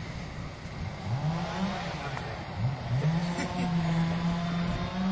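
Kenworth log truck's diesel engine revving under load: the pitch climbs about a second in, drops back, then climbs again and holds high, over a low rumble, as the truck labours through soft mud.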